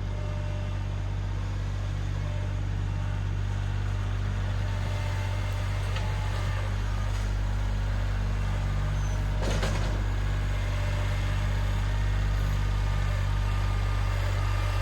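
Kubota L3901 compact tractor's diesel engine running at a steady throttle in low gear while it pushes a pile of asphalt millings. There is one short knock about two-thirds of the way through.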